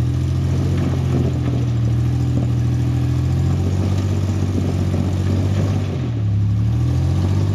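Off-road 4x4 engine running at low, steady revs while crawling a rock ledge. Its pitch dips and rises a few times near the end.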